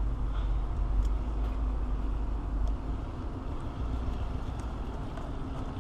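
Low steady rumble of outdoor background noise that eases off about halfway through, with a few faint light clicks.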